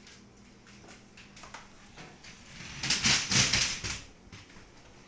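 Dogs' claws clicking and skittering on a hard floor as a German shepherd and a corgi play-fight. A louder flurry of scrabbling and scuffling comes about three seconds in and lasts about a second.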